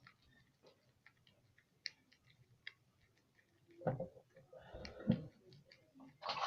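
A spoon stirring a cornstarch-and-shampoo slime mixture in a bowl: light scattered clicks, then louder spells of scraping and handling noise about four seconds in and again near the end.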